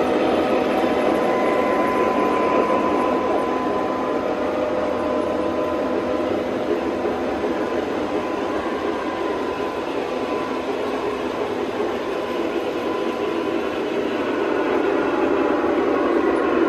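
Three-rail O gauge model trains running on a layout: a steady rumble and whir of wheels and motors on the track, growing a little louder near the end.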